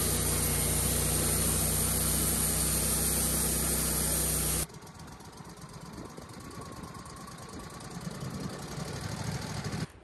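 Wood-Mizer LX150 portable sawmill's engine running steadily and loud. About halfway through, the sound drops abruptly to a quieter, rougher running noise.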